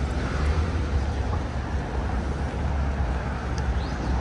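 Steady city street traffic noise with a strong low rumble.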